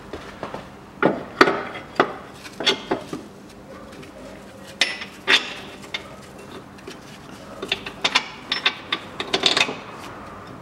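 Irregular metallic clinks and knocks from the rear lower engine mount, its bolt and tools being handled under the car, coming in clusters with short pauses between them.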